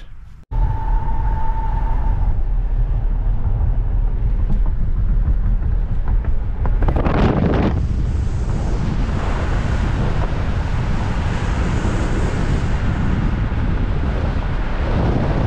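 Wind buffeting the microphone from a moving car, over steady road noise, with a louder rush about seven seconds in.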